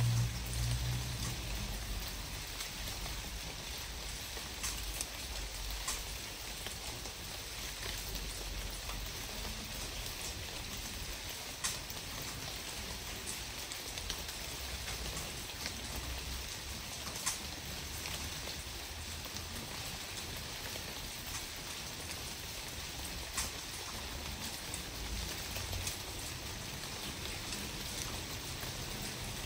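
Steady rain falling outdoors, an even hiss with a few sharper drop ticks scattered through it, and a low rumble in the first second.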